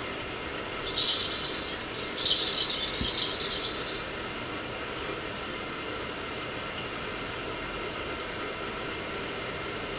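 A cat's jingle ball jingling as it rolls and is batted across carpet, in two bursts: a short one about a second in and a longer one from about two to four seconds in.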